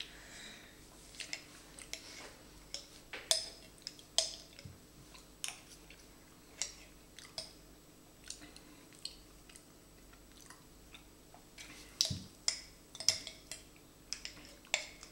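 Sticky chewing and mouth sounds of a person eating thick Vegemite by the spoonful, with irregular sharp clicks of the spoon scraping and knocking against the jar, thickest about three seconds in and again near the end.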